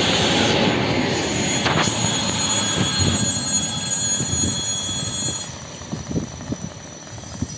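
A passenger train rushing past close by, a loud rush of wheels and cars with a high steady whine, fading away over several seconds, with a few sharp wheel clacks as it goes.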